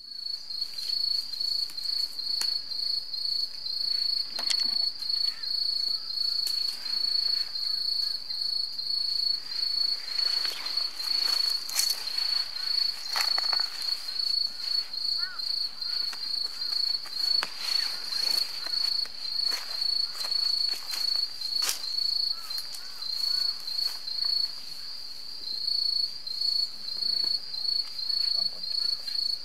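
An insect chirping in a fast, even pulsing rhythm: a high, thin, continuous trill that breaks off briefly near the end and then starts again.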